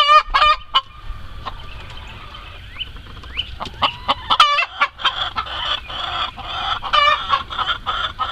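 Chickens calling in a coop: a few loud, harsh, wavering squawks, near the start, around the middle and near the end, over short clucks from several birds that grow busier in the second half.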